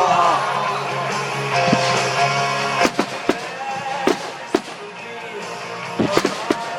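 Music playing over a fireworks display, with firework bangs about three seconds in, twice more around four seconds in, and a quick cluster of bangs near the end.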